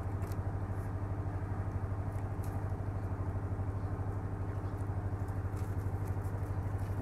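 An engine running steadily nearby, a low hum with a rapid, even chugging.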